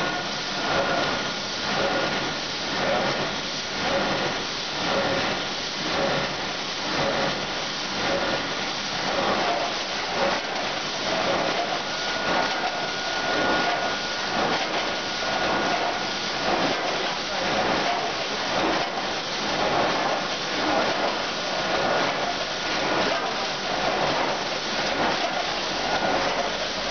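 1999 Optima CCW-NZ 16-head multihead weigher running with olives: a steady mechanical rush from its vibratory feeders and hopper gates that swells about once a second, in step with its weighing cycle of about 60 weighings a minute, with a faint steady whine above it.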